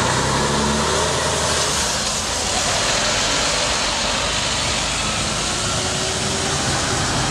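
Articulated bulk cement tanker lorry pulling away and driving past: a steady rushing noise of diesel engine and tyres.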